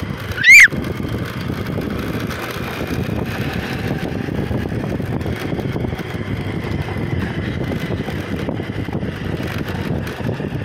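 Steady rush of wind on the microphone over a vehicle moving along a dirt track, pacing a running bullock cart. About half a second in, one very loud, sharp whistle rises and falls in pitch.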